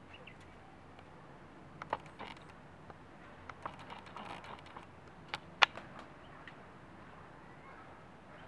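Quail dust-bathing in a plastic basin of sand: faint sand scratching with scattered sharp taps, one near two seconds in, a patch of scratching around four seconds, and two sharper taps about five and a half seconds in.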